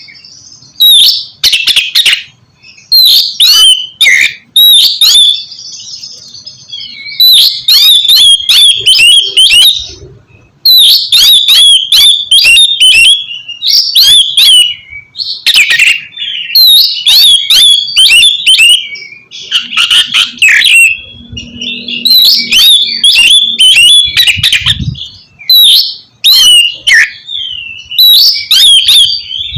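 Oriental magpie-robin singing loudly in repeated bursts of rapid chirps and whistled notes, each phrase lasting a second or two with short pauses between.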